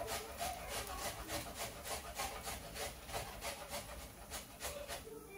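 Silicone spatula stirring raw rice in a stainless steel skillet: rhythmic scraping strokes, about three a second, stopping near the end. The rice is being toasted in the sofrito so that it doesn't turn out sticky.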